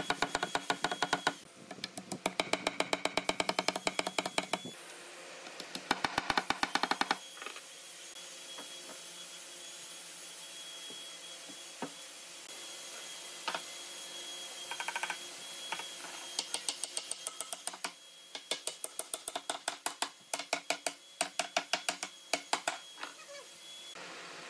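Runs of rapid knocks from a hammer driving wooden dowels and tapping boards together for a dowel joint in red wood slabs. Several runs of quick strikes come at the start and again through the second half, with a quieter gap in between.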